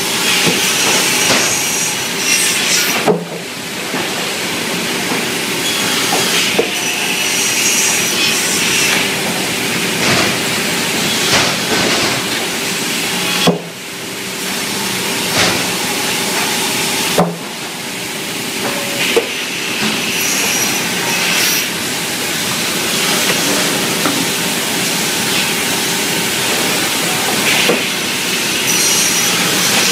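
An automatic crosscut saw machine running as it cuts timber boards to length. A steady hum and hiss go on throughout, with sharp wooden knocks every few seconds.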